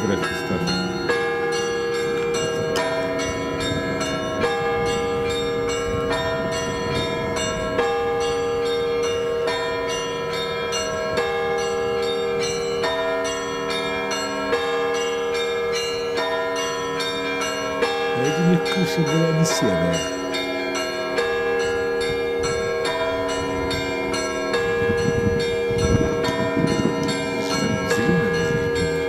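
Church bells ringing a continuous peal, struck in quick, steady succession with the tones shifting from stroke to stroke. Faint voices come in twice.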